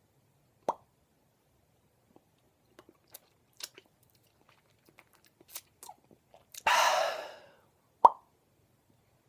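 Two hollow mouth pops, made with the lips and cheeks, one about a second in and a louder one near the end, with faint wet mouth clicks between them and a hiss lasting about a second just before the second pop.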